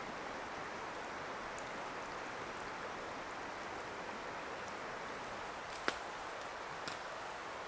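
Shallow river running over a rocky riffle: a steady rush of flowing water, with one sharp click about six seconds in.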